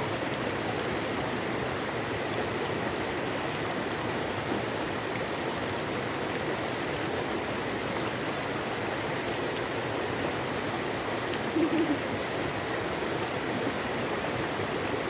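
Steady rush of flowing river water. A brief low sound rises above it about three-quarters of the way through.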